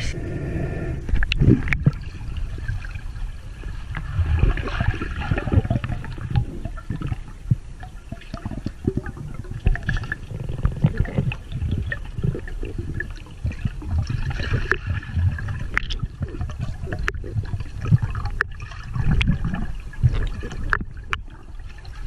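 Muffled underwater sloshing and gurgling heard from a camera submerged in a river as a freediver dives, with a low rumble and frequent small knocks and bubbling.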